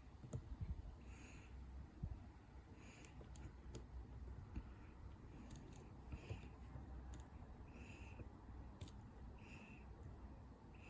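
Faint scattered clicks and light scraping from a lock pick and tension wrench working the pins of a pin-tumbler padlock during single-pin picking, with a few sharper ticks.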